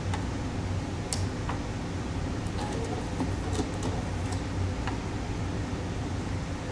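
Light, irregular clicks and taps of a sewing machine's parts being handled while it is set up with a piping foot, over a steady low hum.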